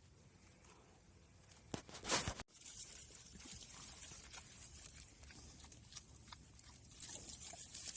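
Crunching and crackling, loudest about two seconds in, then a steady hiss with many small clicks.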